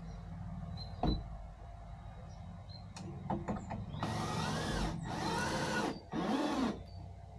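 A small electric power tool running in three short bursts of under a second each, its pitch rising and falling within each burst. A few knocks come before the bursts.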